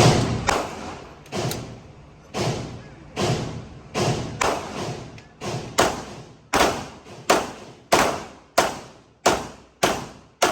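Gunshots fired in a steady string, about one every two-thirds of a second and coming slightly faster toward the end, each sharp report ringing out in a short echo.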